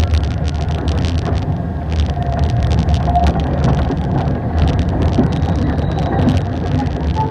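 Light rail train heard from inside the car while running: a steady low rumble of wheels and running gear, with a dense crackle of small clicks and rattles over it.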